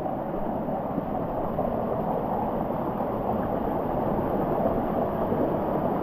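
Steady rushing of water in a small hill river stream.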